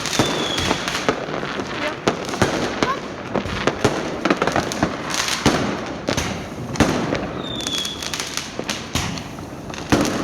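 Fireworks going off in a dense, continuous run of sharp bangs and crackles, with a short high whistle about half a second in and another near the 8-second mark.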